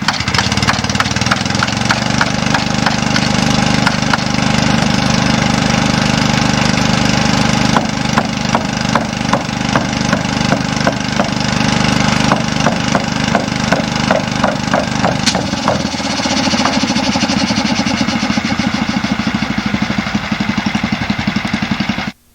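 An engine running steadily, with many sharp clicks and knocks over it; the low hum eases off about 16 seconds in, and everything cuts off suddenly near the end.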